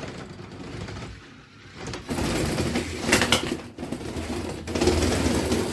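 Lego combat robots driving and fighting: small electric motors running with plastic parts clattering, louder from about two seconds in, with a cluster of sharp knocks about three seconds in and another near the end.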